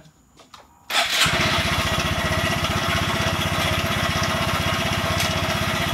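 Honda Grom's freshly rebuilt 125 cc single-cylinder engine idling with a steady, even beat. It comes in suddenly about a second in, after near silence.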